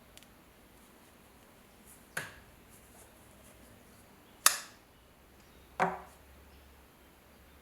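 Three sharp clacks from the restored folding pocket knife being handled, about a second or two apart, each with a short ringing tail; the second is the loudest.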